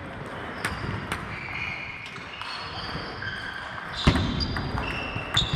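Table tennis rally: the celluloid ball clicking sharply off the bats and table, a loud hit about four seconds in, with more ball clicks from other tables around the hall. Short high squeaks, likely shoes on the sports floor, come and go between the hits.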